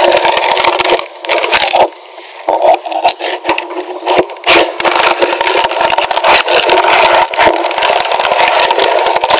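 Cured fiberglass mat crackling and tearing as it is pried and peeled off a wooden stringer form: a dense run of cracks and snaps, with a short lull about two seconds in.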